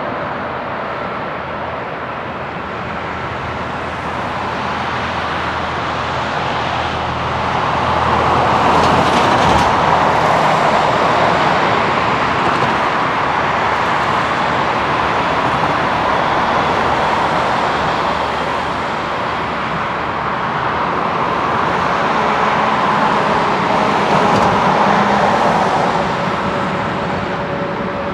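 Airbus A321-200 jet engines running at taxi power as the airliner rolls past, a steady jet noise that grows louder about seven seconds in and eases near the end.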